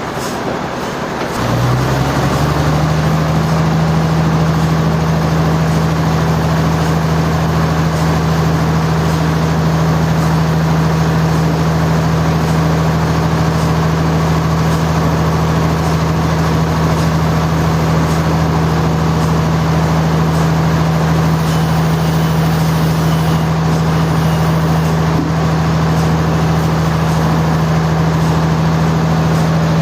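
Heavy sawmill machinery starts up about a second and a half in, its hum quickly rising in pitch, then runs at a steady speed with a loud, constant low drone.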